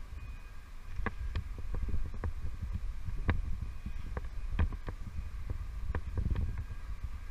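Low wind rumble on the microphone with irregular sharp clicks and knocks, about one to three a second, from an abseiler's rope gear and shoes touching the tower wall during the descent. A faint steady hum runs underneath.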